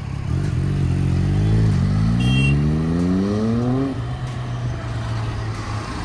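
Triumph Daytona sport bike with an Arrow slip-on exhaust accelerating away, its engine note climbing in pitch, dipping briefly at a gear change, then climbing again before falling away near four seconds in to a steady low hum over traffic noise.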